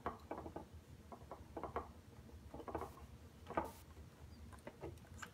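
Small screwdriver driving a long screw into a 3D-printed plastic mount on a drone's landing gear: faint, irregular clicks and scratches, with a louder click about three and a half seconds in.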